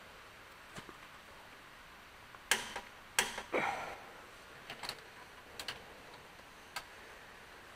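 Irregular metal clinks and knocks of a wrench and socket against the engine's bolts and block, with a short scrape, loudest in a cluster around the middle, as the rod-cap bolts are worked on inside the crankcase.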